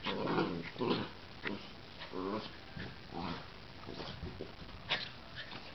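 Two miniature dachshunds play-fighting: a string of short growls and huffs, about one a second, with a brief higher-pitched growl about two seconds in.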